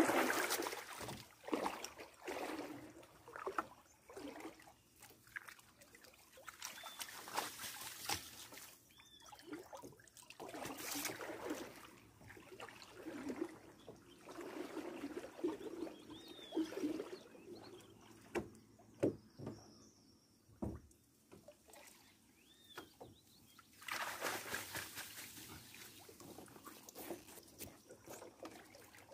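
Water sloshing and splashing in uneven bursts as a hand-held mesh sieve is swept through shallow river water and bank grass, with the wader's legs stirring the water.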